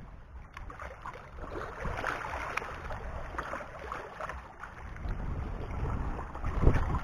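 Wind buffeting the microphone over small waves lapping and washing among shore rocks, with one louder low bump near the end.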